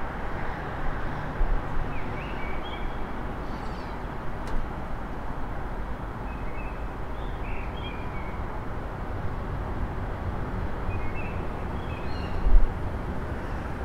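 A songbird singing short, scattered phrases over the steady hum of city traffic, with a brief low thump near the end.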